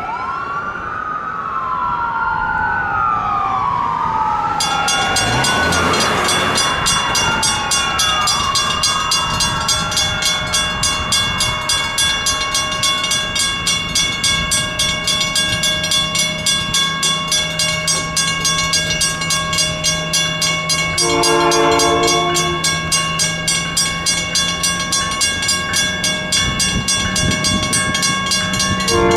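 Railroad grade-crossing bell starts ringing rapidly and evenly about four seconds in. A siren wails up and down through the first several seconds. A train horn sounds a short chord blast about two-thirds of the way through and starts again at the very end.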